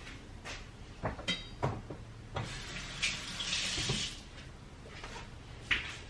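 Kitchen tap running briefly about three seconds in, amid a few knocks and clatters of kitchen handling, with a sharper click near the end.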